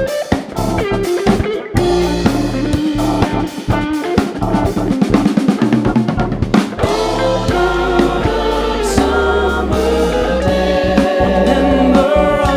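A live funk band playing an instrumental passage: drum kit with snare and rimshots over bass and guitar, with sustained melodic lines building in the second half.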